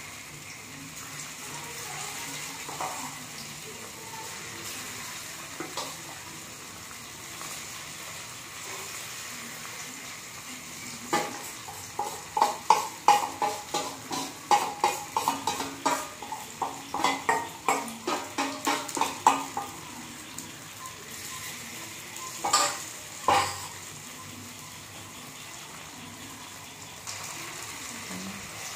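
Paneer cubes sizzling in hot oil in a metal kadai over a high gas flame, a steady hiss throughout. About ten seconds in, a metal spatula scrapes and clacks rapidly against the metal for several seconds, and two sharp knocks follow a little later.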